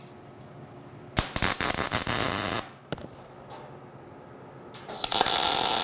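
MIG welding arc crackling in two short tack welds, each about a second and a half long, one about a second in and the other near the end, fixing a steel brace to a grill top.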